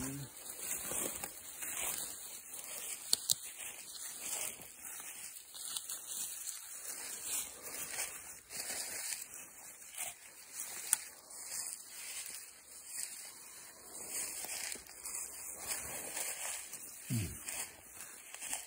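Footsteps crunching and rustling through dry fallen leaves and brush, one step after another. A short low sound that falls in pitch comes near the end.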